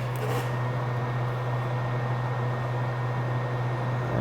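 Steady low hum with an even background hiss and a faint high steady tone. A brief soft rustle comes just after the start.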